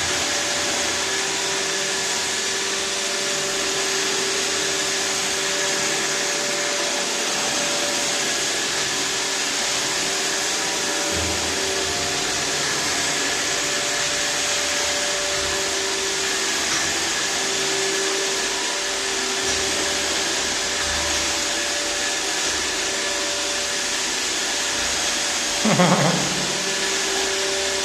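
iRobot Roomba 612 robot vacuum running steadily: an even hum from its suction motor and brushes, with a few held tones over it.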